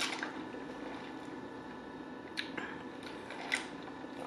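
Sipping a fountain soda through a straw close to the microphone: mostly quiet, with a few short mouth sounds in the second half.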